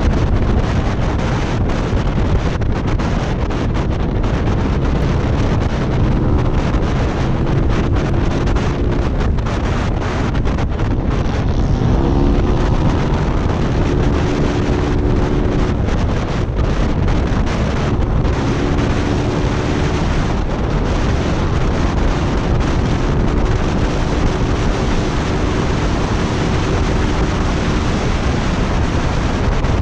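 Heavy wind rushing over the microphone at highway speed on a Yamaha Mio 4-valve scooter (205cc air-cooled, quiet "silent" pipe). The scooter's engine note sits faintly under the wind, comes and goes, and rises twice as it accelerates.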